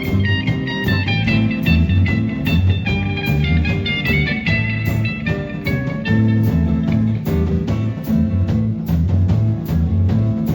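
Live band playing an instrumental passage: a guitar lead line over a bass line and a steady beat.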